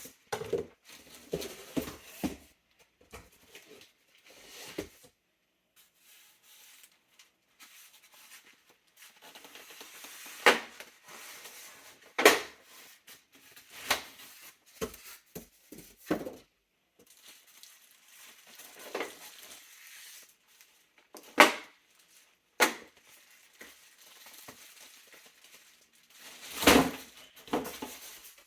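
Handling noise from unboxing a computer case: scattered knocks and clunks with short bouts of rustling and scraping of packaging, irregular and with quiet gaps. The loudest knocks come about midway and a cluster comes near the end.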